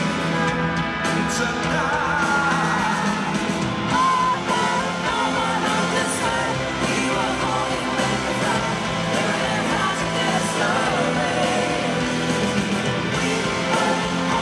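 Live pop-rock band performance with singing and yells over it.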